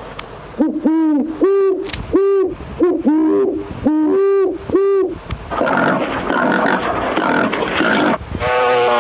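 Owl hooting: a run of about nine short hoots over the first half, some in quick pairs. A few seconds of rushing noise follow, and a different steady pitched sound begins near the end.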